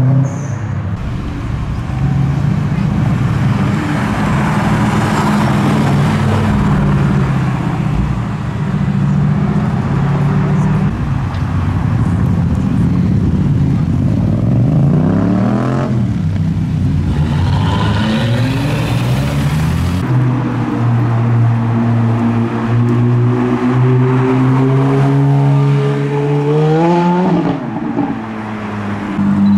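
Performance car engines heard one after another as they pull away and pass on a street: a Subaru Impreza, a Jaguar F-Type SVR and a Ferrari F430 Spider. Revs rise and fall, with a sharp rising rev that drops away near the end.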